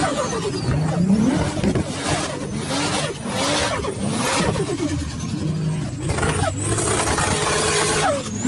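Turbocharged Nissan Patrol engine revving hard again and again while the SUV spins in loose sand, its pitch climbing and dropping in repeated sweeps over a loud hiss of sprayed sand. A thin falling whistle sounds near the start.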